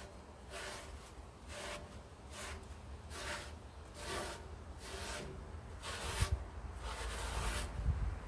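Repeated rubbing strokes, about one a second, with a low rumble building near the end.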